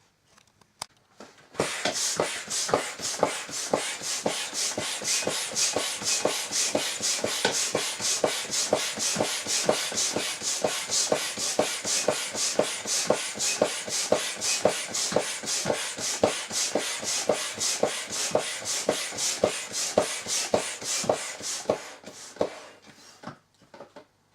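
Manual air pump inflating a patched inflatable pool toy: a steady run of rasping pump strokes, about three a second, that starts a second or two in and stops shortly before the end.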